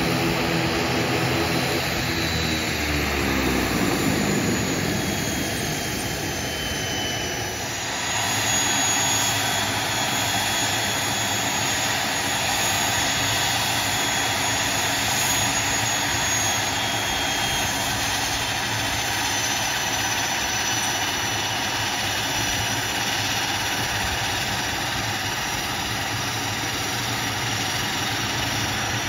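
ATR 72's twin Pratt & Whitney Canada PW100-series turboprops running at low taxi power: a steady propeller drone with a high turbine whine. In the first few seconds the drone bends in pitch, and about eight seconds in it settles into an even drone.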